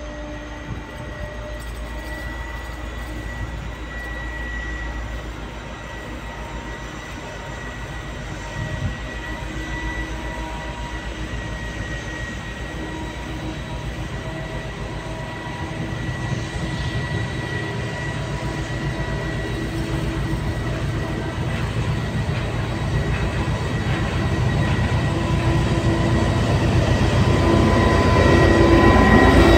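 Voith Maxima 40CC diesel-hydraulic locomotive pulling away with a heavy train of open coal wagons. Its engine runs with a low rumble and a steady whine, growing louder as it approaches and draws alongside near the end.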